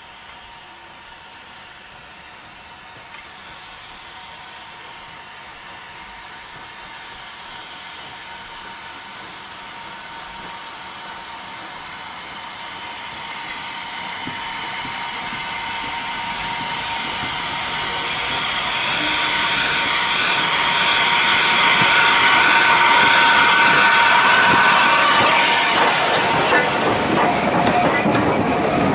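Southern Railway U class 2-6-0 steam locomotive 31806 running in and passing close by, its sound growing steadily louder to a peak about three-quarters of the way through. Near the end its train of coaches rolls past with wheels clattering on the rail joints.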